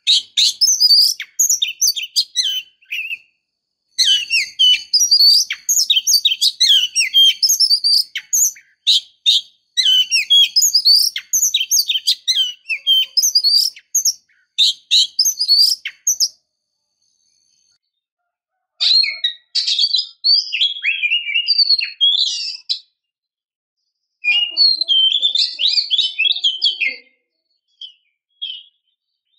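Female oriental magpie-robin calling in rapid, varied high chirps and trills, in four long bursts with brief pauses between. It is the call of a female in breeding condition, used as a lure to provoke male magpie-robins into singing.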